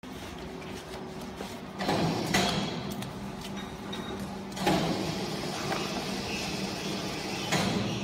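Several clunks and rattles from a steel vertical cardboard baler's loading door and chamber as it is handled and loaded, over a steady low hum.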